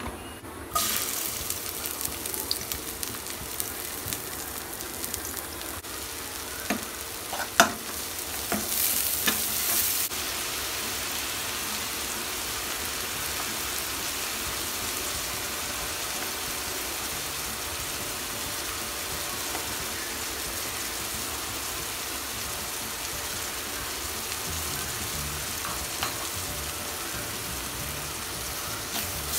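Hot mustard oil sizzling in an aluminium frying pan, with ground spices frying in it. The sizzle starts suddenly about a second in, swells louder for a couple of seconds around eight seconds in, then settles into a steady sizzle. A few sharp knocks from the metal spatula against the pan sound in the first ten seconds.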